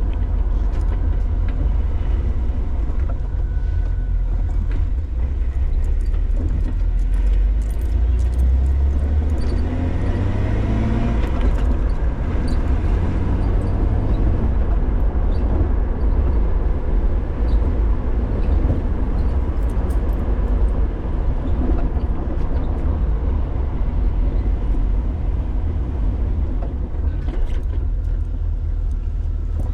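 2006 Jeep Wrangler TJ being driven, a steady engine and road rumble, with the engine note rising as it accelerates about ten seconds in.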